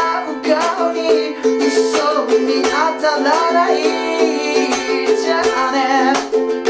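Small, thin-bodied ukulele strummed in a steady groove, with a melody line ringing over the chords in a solo chord-melody arrangement.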